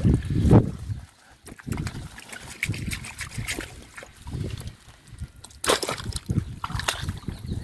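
Water sloshing, splashing and dribbling as a person wades and gropes by hand in shallow water among water hyacinth. A heavier slosh comes in the first second, then irregular smaller splashes and drips.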